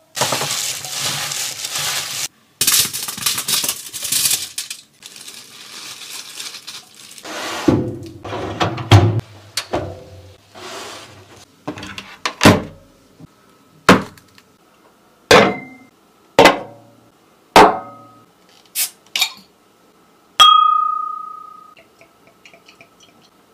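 A burst of hissing, then a series of sharp knocks and clinks of glass and dishes about a second apart. The last is a glass clink that rings briefly.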